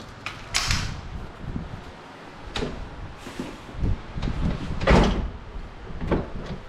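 Car door handle and latch of an Infiniti G37 coupe being tried out, the freshly replaced handle working: a few sharp clicks, then a heavier latch clunk about five seconds in.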